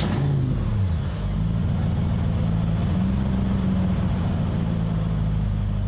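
Car engine on a test stand running just after starting, its revs settling within the first second and then holding a steady idle.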